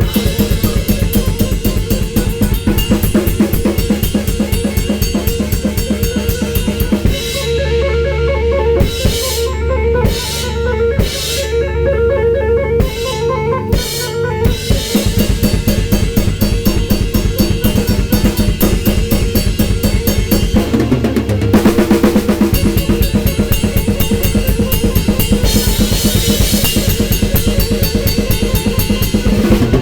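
Drum kit played in a fast, busy improvisation on bass drum, snare and cymbals. About a third of the way in it thins out for several seconds to a few separate hits over a low bass, then the dense playing resumes.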